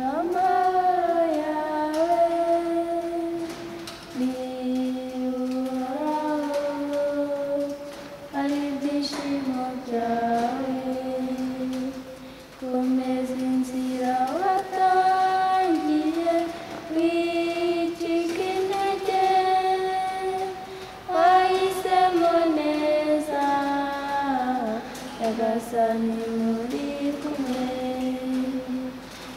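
Young men singing a song together without accompaniment, in long held notes that step from pitch to pitch.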